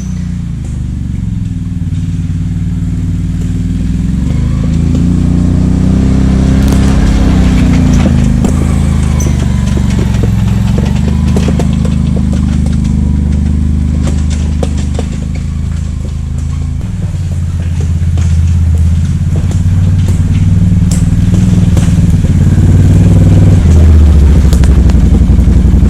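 Kubota LX2610 compact tractor's three-cylinder diesel engine running while driving, its pitch rising and falling, with knocks and rattles through the middle stretch. The engine gets louder towards the end.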